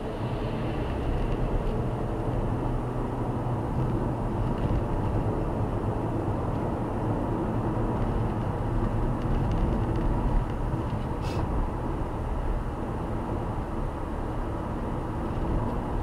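Steady engine and tyre rumble heard inside a car driving on a highway, picking up speed as it overtakes a truck. There is a short click about eleven seconds in.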